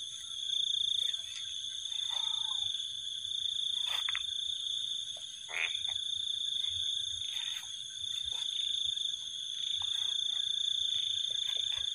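Steady high-pitched chorus of night insects and frogs, with a few faint short calls and clicks over it.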